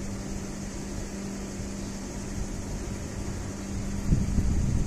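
Steady outdoor hum and hiss. About four seconds in, a low rumble grows as an Alstom Citadis tram approaches along the track.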